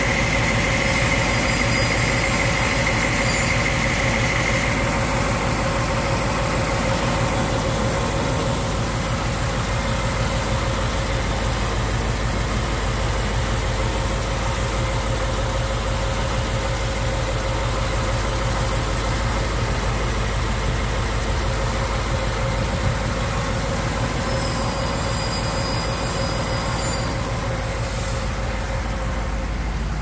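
1959 Ford Thunderbird's V8 engine idling steadily, heard close up in the open engine bay, with a steady whine over the running.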